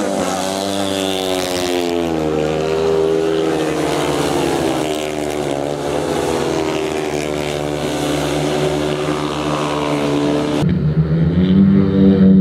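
Speedway motorcycles' single-cylinder engines racing round the dirt oval, their pitch rising and falling as the riders go through the bends. Near the end, one engine note turns louder and steadier as a bike approaches.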